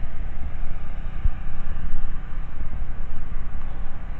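Low rumbling noise from wind buffeting the microphone, rising and falling in quick gusts.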